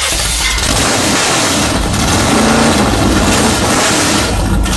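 Predator 212 single-cylinder four-stroke go-kart engine running loud through its exhaust on its first start, steady and unbroken.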